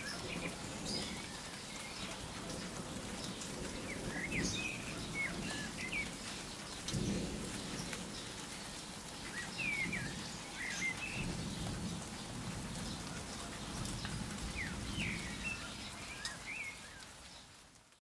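Steady rain falling, with short bird chirps now and then and low rumbles of thunder, the strongest about seven seconds in. It fades out at the end.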